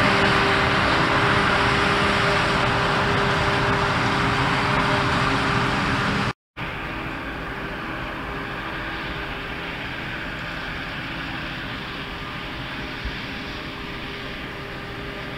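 Claas Jaguar 860 self-propelled forage harvester chopping maize and blowing it into a trailer, with tractors running alongside: a steady machinery drone with a constant hum. The sound cuts out for a moment about six seconds in and comes back quieter, the machines further off.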